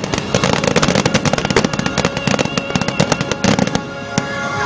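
Aerial fireworks in a finale barrage: rapid, dense crackling and bangs from many shells bursting at once, thinning out near the end.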